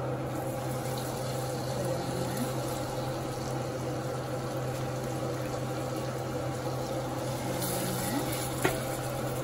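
Ribeye steaks sizzling in foaming butter and olive oil in a hot cast-iron skillet as they are laid in with tongs, over a steady low hum. The sizzle brightens near the end as the second steak goes in, followed by a sharp click.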